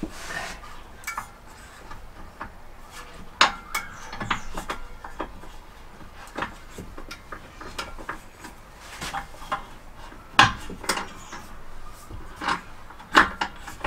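Scattered knocks, clicks and light rattles of hard parts being handled at a wall-mounted sink unit, with sharper knocks a few seconds in, about ten seconds in and near the end.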